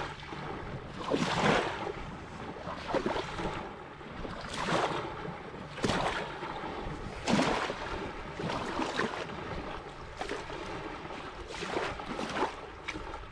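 Small waves lapping and washing onto a sandy riverbank, one wash every second or two, with wind on the microphone.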